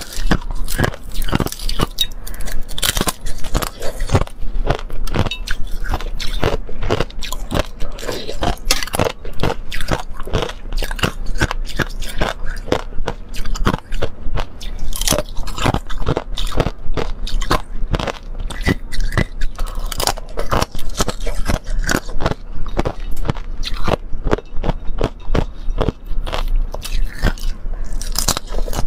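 Thin, brittle frozen milk ice being bitten and chewed close to the microphone: a fast, continuous run of crisp crunches and crackles, with small cracks as shards are snapped off by hand.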